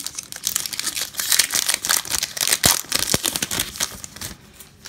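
Plastic foil wrapper of a Topps Holiday baseball card pack being torn open and crinkled by hand, a dense crackling that stops shortly before the end.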